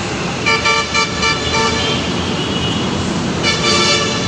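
A horn sounding in two runs of short toots, about four a second, the first starting about half a second in and the second near the end, over the steady noise of a passing LRT-1 train and road traffic.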